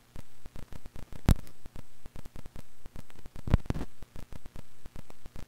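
Electrical static with a low mains hum on the audio line, cutting in and out in irregular short stretches. A sharp pop comes about a second in, and a louder crackle comes about three and a half seconds in.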